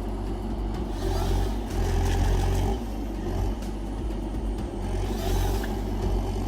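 Heavy forestry harvester's diesel engine running under work, a steady low hum with mechanical noise over it, swelling briefly about two seconds in.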